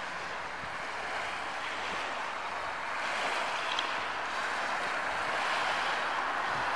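Small waves lapping on a stony beach: a steady wash of water.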